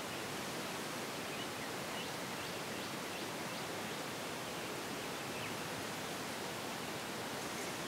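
Steady, even hiss of outdoor background noise, with a few faint, short, high chirps scattered through it.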